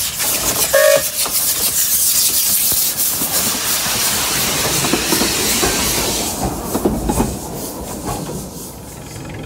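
Small 3-foot narrow-gauge steam locomotive passing close by with a carriage, its steam hissing loudly. Then the wheels click over the rail joints as the carriage goes past, and the sound fades away near the end.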